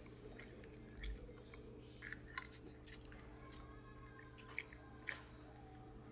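Faint close-up chewing of a mouthful of pancit noodles, with a few small wet mouth clicks, over a steady low hum.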